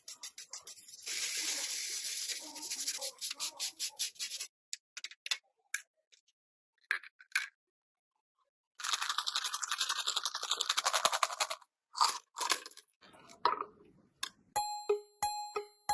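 Fast back-and-forth scrubbing strokes, the rapid rubbing of hand work on a rusty gun part, in two spells a few seconds apart with scattered clicks between them. Near the end come a few short, bright ringing tones.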